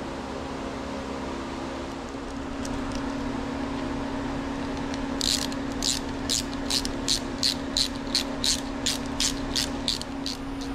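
Ratcheting hand tool clicking in short bursts, about three a second, as a bolt on a motocross bike's rear brake caliper is turned, starting about halfway in and stopping near the end. A steady fan hum runs underneath.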